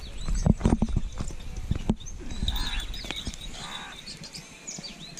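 Hoof steps and footsteps on straw-strewn dirt as a young animal is led on a rope, with a quick run of knocks and clicks in the first two seconds. Birds chirp in the background.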